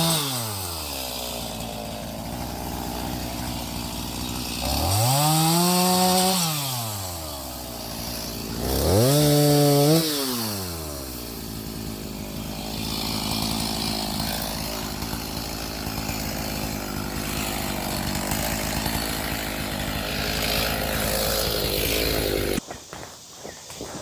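Gas chainsaw engine revved up and back down twice, idling between and after the revs. It stops abruptly about a second and a half before the end.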